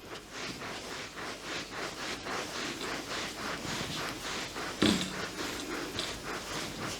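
Hands working quickly over the body in a massage, rubbing or patting at about three to four strokes a second, with one louder thump about five seconds in.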